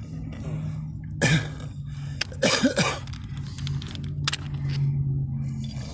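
Plastic button caps being worked off a car's power-seat switch, with a few sharp clicks, over a steady low hum. A person coughs twice, about a second and a half in and again near the middle.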